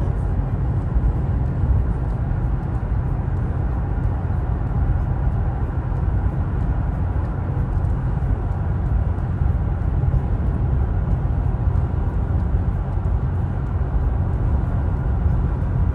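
Steady low drone of road and engine noise inside a car's cabin while driving at highway speed.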